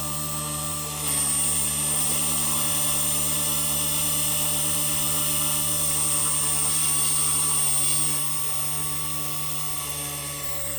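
Small electric RC helicopter (T-Rex 250 clone) spooled up, its brushless motor, gears and rotor blades making a steady high-pitched whine. The throttle is raised about a second in, held, and eased back around eight seconds.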